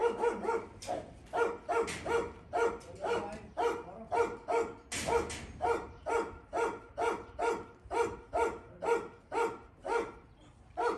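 A dog barking over and over in an even rhythm, about two barks a second, stopping near the end.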